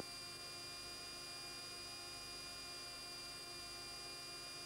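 Steady electrical hum with a thin, high, steady whine over it: the background of a Tornado GR4's cockpit intercom recording when nobody is transmitting.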